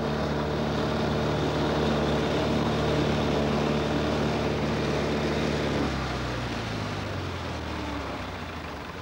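Tractor engine running steadily. About six seconds in its note drops, and it fades away toward the end.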